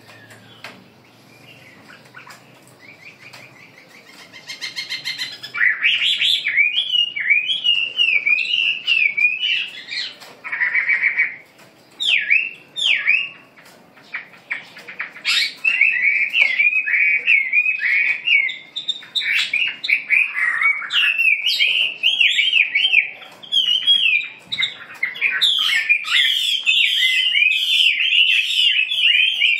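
Caged songbirds singing: quick, varied chirping and warbling phrases that start about five seconds in and carry on with short pauses, fainter chirps before that.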